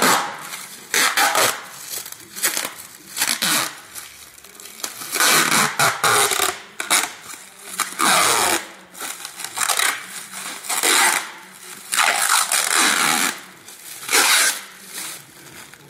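Protective plastic peel coat being pulled off a round table top and crumpled in the hand: repeated crackling, rustling bursts about a second long.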